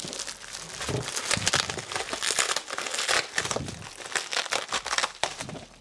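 Packaging crinkling and crumpling as clutch-kit parts are unpacked by hand, a dense run of crackles that dies away near the end.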